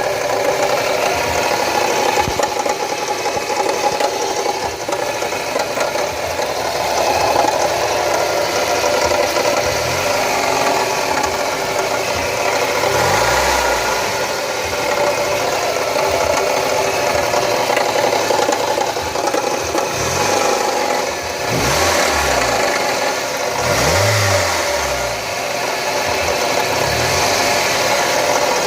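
2005 Mazda Miata MX-5's four-cylinder engine running with a knocking, grinding rattle. The owner is unsure whether it comes from the VVT, the power steering or something worse.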